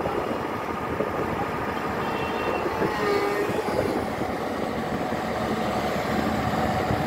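Hyundai R210 hydraulic excavator's diesel engine running steadily under load as the machine travels on its steel crawler tracks. A brief squealing tone comes in about two to three seconds in.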